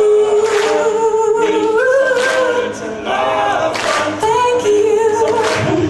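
A small group of singers, male and female, singing a cappella in harmony into microphones, with a sharp beat about every second and a half.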